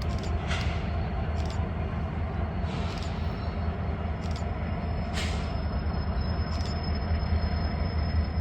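Train rolling by with a steady low rumble, several sharp clicks at uneven intervals, and a thin high whine from about five seconds in.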